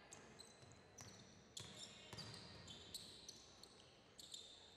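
Basketball bouncing on a hardwood gym floor as players dribble and move, with short high-pitched sneaker squeaks on the court. Heard faintly, with the knocks coming irregularly about every half second to a second.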